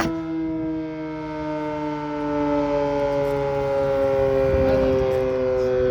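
Sterling Model M electromechanical warning siren sounding loud at close range: a chord of several steady tones that slowly falls in pitch.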